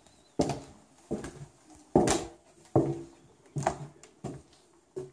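Footsteps on bare wooden attic floorboards: about seven steady steps, a little under one a second.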